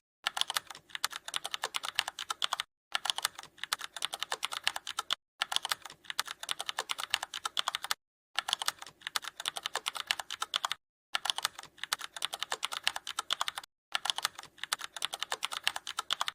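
Rapid typing on a computer keyboard, dense key clicks in stretches of about two and a half seconds, each broken off by a sudden short gap of silence.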